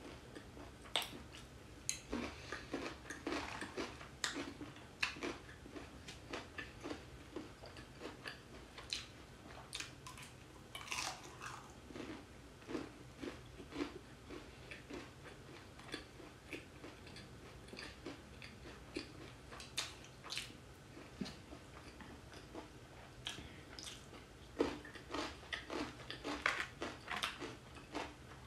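Chewing and biting of crispy corn-cheese fried chicken, with irregular crunches in clusters and short pauses between mouthfuls.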